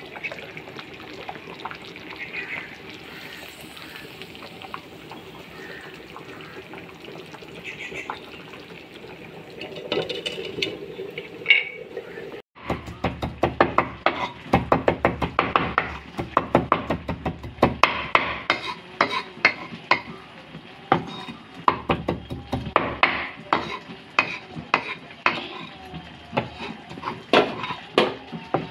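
Kitchen sounds as a glass lid is lifted off a bubbling pot. From about halfway, a steel cleaver chops fresh green herbs on a wooden cutting board in quick, sharp strikes, several a second.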